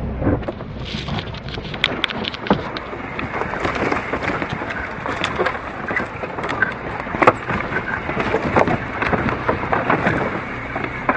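A car crawling along a muddy forest track over logs and brush: a dense crackle of twigs and branches snapping and scraping along the body and tyres, with wet mud spattering, over a low engine rumble.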